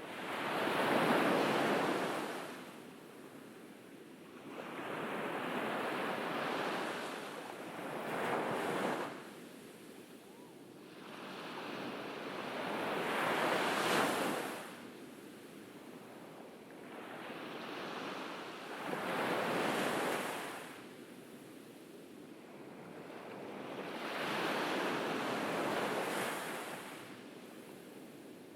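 Ocean surf on a beach: waves breaking and washing up the shore, one every four to six seconds, each swelling to a peak and fading away.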